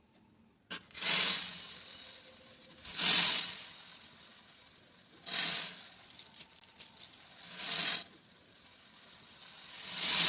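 Beads being poured, a rattling, pattering rush that swells and fades five times, one pour about every two to two and a half seconds, starting just under a second in.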